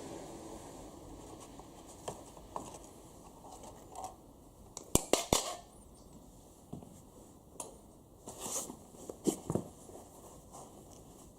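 Hand-work noises at a workbench: scattered clicks and light knocks, with a quick cluster of three sharp knocks about five seconds in and a few more near the end.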